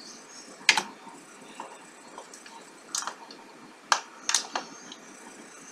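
Computer mouse and keyboard clicking: about half a dozen short, sharp clicks at uneven intervals, some in quick pairs, over a faint steady background hiss.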